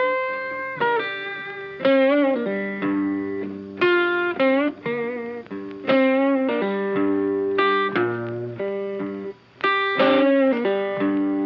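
Background music: a melody of sharply struck, plucked-sounding notes that ring and fade one after another, some with a wavering pitch.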